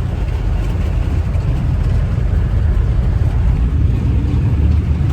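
Heavy rain, a loud steady rushing noise with a deep rumble underneath.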